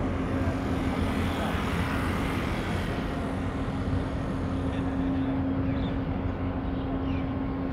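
A steady low engine hum under heavy outdoor rumble, with a rushing swell that builds about a second in and fades away about four seconds later.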